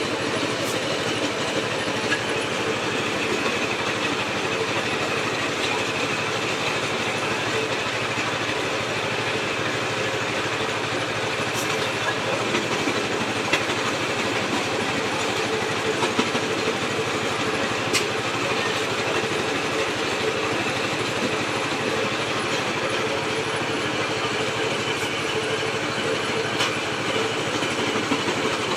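Engine-driven brick-crushing machine running steadily while bricks are fed in and crushed. A few sharp clicks stand out over the steady machine noise.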